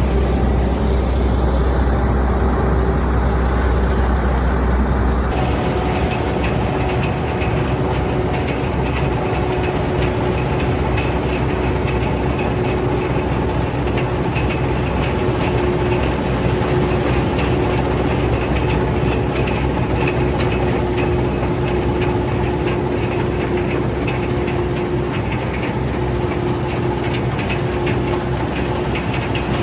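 Fortschritt E514 combine harvester working in the field: its diesel engine drones steadily under a continuous rattle of the cutting and threshing machinery. A heavy low rumble drops away about five seconds in.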